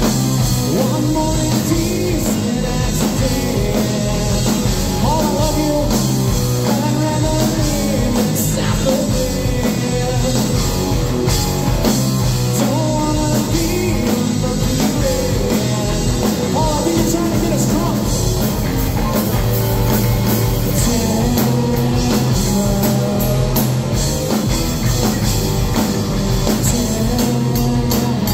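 A live rock band playing: electric guitar, electric bass and drum kit, with a sung lead vocal over them.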